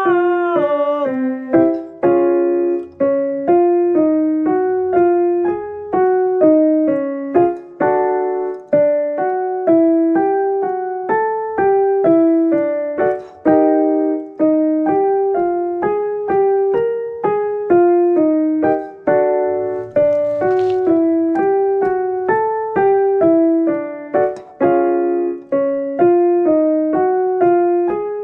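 Piano accompaniment for vocal exercises: short struck notes and note patterns in a steady rhythm, each note fading after it is struck, repeated over and over.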